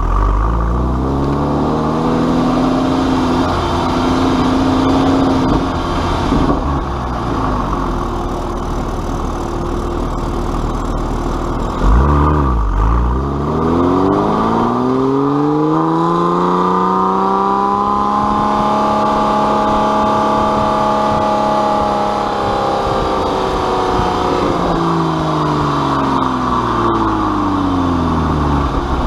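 Porsche 911 Carrera S flat-six engine through an aftermarket Fister exhaust, revving up and down several times. Midway it makes one long climb, holds high for several seconds, then falls back toward idle near the end.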